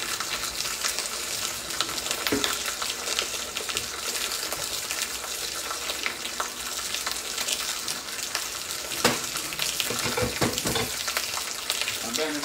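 Beef steaks sizzling with fine crackles as they sear in a very hot pan. There are a few soft knocks about two seconds in and again in the last few seconds.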